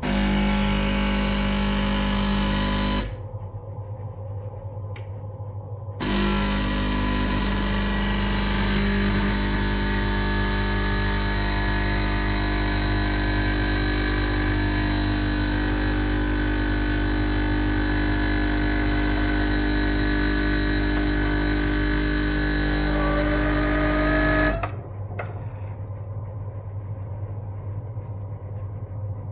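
Karaca Coffee Art 1101 espresso machine's pump buzzing as it pushes water through the empty filter on a double-cup brewing cycle. It runs for about three seconds, stops for about three, then runs steadily for about eighteen seconds before cutting off.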